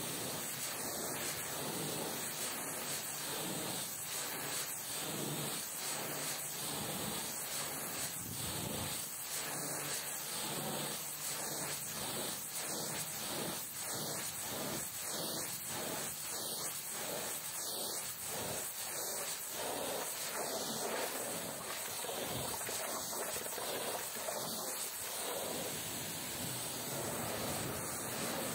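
A high-pressure washer jet spraying water onto a truck, giving a steady hiss that pulses rhythmically for a stretch in the middle.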